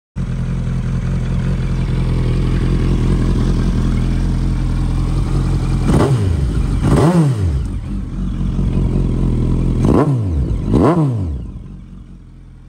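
Suzuki GSX1250FA's 1255 cc inline-four running at idle in neutral, blipped four times in two quick pairs, each rev rising sharply and falling straight back. The sound drops away near the end.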